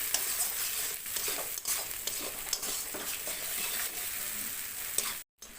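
Spice paste with onion frying and sizzling in hot oil in a pan while it is stirred and scraped with a spoon, in irregular strokes. The masala is being cooked down (kosha). The sound cuts out briefly about five seconds in.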